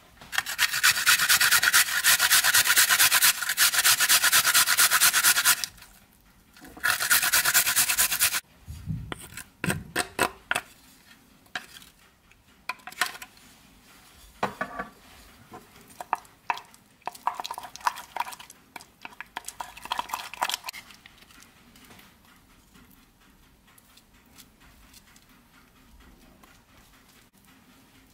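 Garlic rasped on a metal hand grater, in two long runs of fast scraping strokes of about five seconds and two seconds. Then a wooden spatula knocks and scrapes against the bowl as it stirs the garlic into mayonnaise, and the sounds die away after about twenty seconds.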